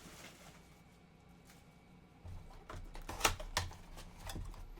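Plastic shrink-wrap being pulled off a sealed box of trading cards: faint at first, then, a little past two seconds in, a run of crinkles and sharp clicks as the wrap and box are handled.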